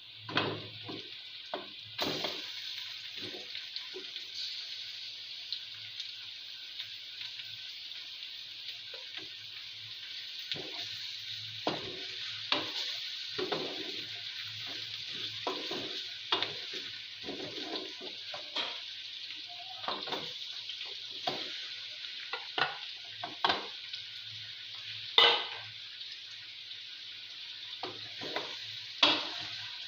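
Chicken pieces frying with onions in hot oil in a pot, a steady sizzle that gets louder about two seconds in. A spoon scrapes and knocks against the pot at irregular intervals as the meat is stirred, with one louder clack near the 25-second mark.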